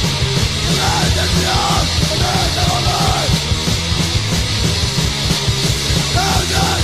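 Hardcore punk recording: fast drums and distorted guitar, with shouted vocals about a second in and again near the end.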